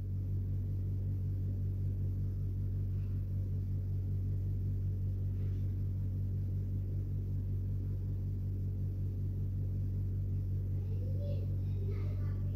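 Steady low hum made of several evenly spaced pitches, unchanging in level throughout.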